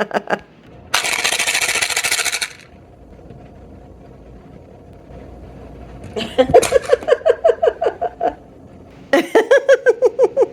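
A container of dry cat treats shaken once, a rattle of about a second and a half. Later come two runs of quick, rhythmic laughter.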